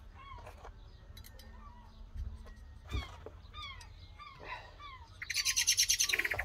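Garden birds chirping and singing, with short falling chirps repeated throughout. A sharp click sounds about three seconds in, and near the end a loud, fast rattle of clicks lasts about a second.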